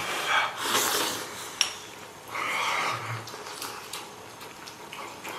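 A person eating hot pot close to the microphone: two long noisy mouth sounds of slurping and eating, one at the start and one in the middle. A sharp click of chopsticks against a metal bowl comes between them.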